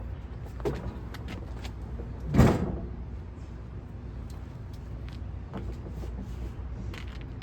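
Handling noise: scattered light clicks and knocks over a steady low rumble, with one loud thump about two and a half seconds in.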